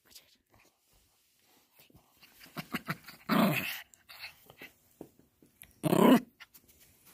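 Small dogs, a Yorkshire terrier and a Lhasa Apso, play-fighting over a toy: two short, loud growling barks, about three and a half and six seconds in, with quieter scuffling and snuffling between them.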